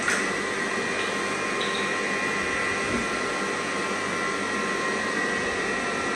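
Electric stand mixer running steadily with a motor whine while it mixes cake batter, with a sharp click right at the start.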